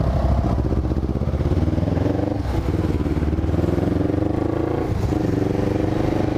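1998 Honda CB500's parallel-twin engine running under way, with brief changes in its note about two and a half and five seconds in.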